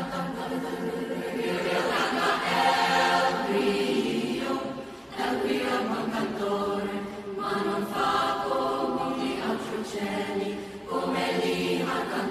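Mixed youth choir of girls' and boys' voices singing in parts. The phrases break off briefly about five seconds in and again near eleven seconds.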